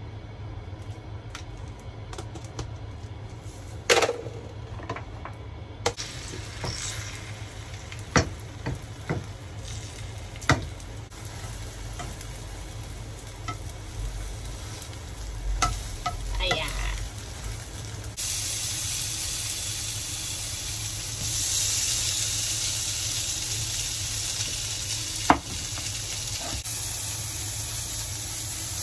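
Beaten egg sizzling faintly in a hot nonstick frying pan, with sharp taps and scrapes of a utensil as the egg sheet is worked and folded. About 18 seconds in, a louder, steady sizzle of fillings frying in oil takes over as they are stirred with chopsticks, and a single sharp knock comes near the end.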